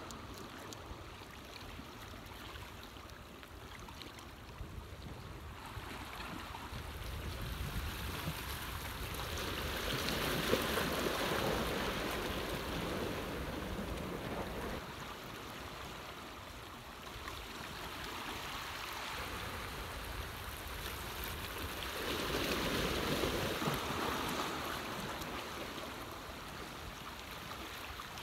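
Seawater rushing and washing, with two slow surges that swell and ebb about ten seconds in and again near the end, like waves coming in.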